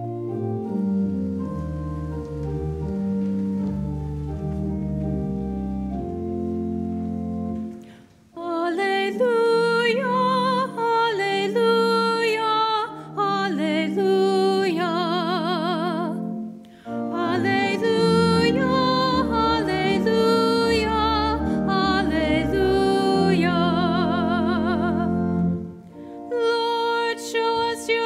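Church organ playing held chords with a deep bass for about eight seconds, then a solo singer with a strong vibrato comes in over the organ. This is the sung Gospel Acclamation between the second reading and the Gospel at Mass.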